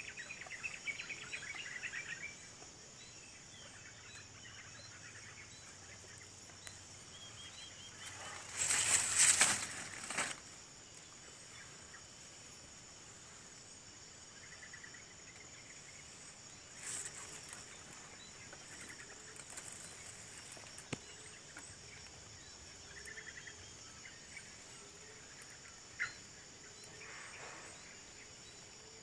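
Steady, high-pitched chorus of insects at a tropical forest edge, with scattered short bird calls. About nine seconds in comes a loud rush of noise lasting a second and a half, with two softer ones later.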